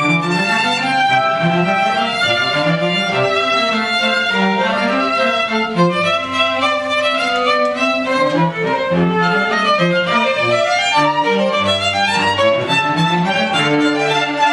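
Youth string orchestra playing with two solo violins, cellos in the lower parts; continuous classical string music with moving melodic lines.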